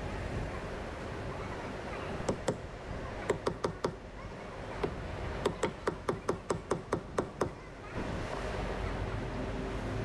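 A hand hammer tapping on the metal of a concrete pump's water pump: about twenty light, quick strikes in runs of roughly six a second, each ringing briefly. They come between about two and seven and a half seconds in, over a steady low background rumble.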